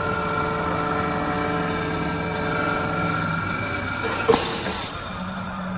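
WS-L1530A CNC wood lathe running: its spindle and cutter head whine steadily while a wooden blank is turned and machined. One sharp knock comes a little over four seconds in, after which the whine gives way to a lower steady hum.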